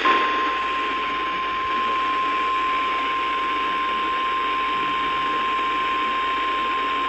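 NOAA Weather Radio 1050 Hz warning alarm tone: one steady, unbroken pure tone over radio static hiss, sounded to announce a warning, here a special marine warning.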